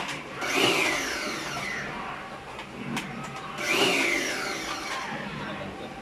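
Pressure washer spraying water onto the air conditioner's panels, swelling twice, about three seconds apart, with a sweeping hiss that falls in pitch as the spray moves across the surface.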